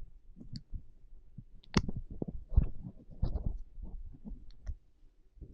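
Wrapper crinkling and crackling as a toffee is picked out of its packaging, mixed with irregular knocks and bumps from a handheld microphone being handled.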